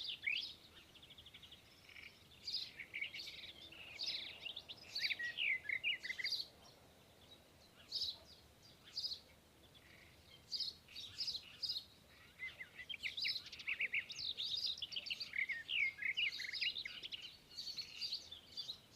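Small songbirds chirping and twittering in quick high bursts with short pauses between them, several calling together and more busily near the end.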